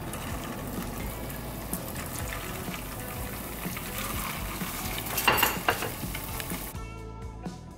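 Corn-dough sticks frying in very hot oil in a frying pan: a steady sizzle, with a brief louder burst about five seconds in. Guitar music comes in near the end.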